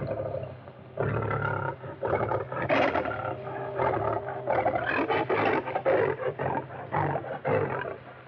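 Lion roaring in a run of repeated harsh bursts, dropping away near the end, on a narrow-sounding 1930s film soundtrack.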